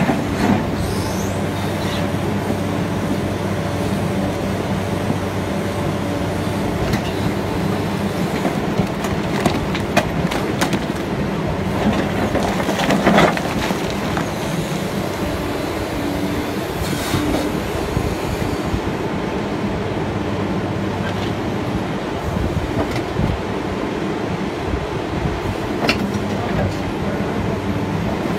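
MST M300LC crawler excavator's diesel engine running steadily under hydraulic load while the bucket digs through broken rock. Stones clatter and scrape against the steel bucket now and then, loudest about halfway through.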